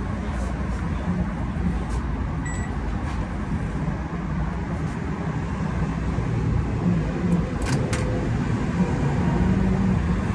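DLC microwave oven running with a steady low hum, working normally after repair of its control board. A short beep sounds about two and a half seconds in, and two clicks come near the end.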